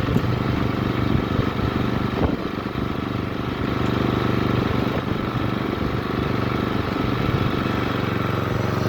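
Dixon zero-turn riding mower's engine running steadily.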